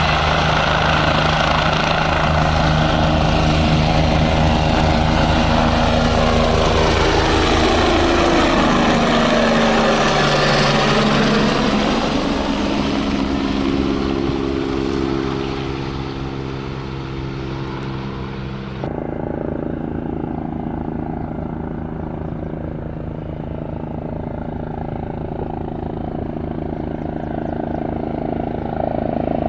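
Helicopter flying past, its turbine whine and rotor beat falling in pitch as it goes by. After a sudden cut about two-thirds of the way in, a farther-off helicopter is heard, quieter and duller.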